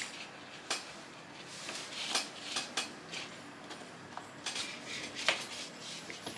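Scattered light clicks and knocks of hard plastic as the rear handle housing of an angle grinder is pushed back onto the motor body and turned to line up its screw holes.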